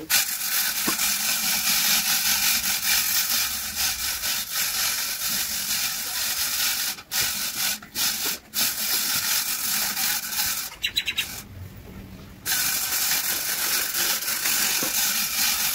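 A steady, loud hiss that breaks off briefly a few times and goes quiet for about a second before starting again.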